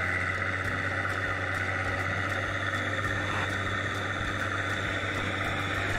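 Tractor engine running steadily with an even, unchanging hum.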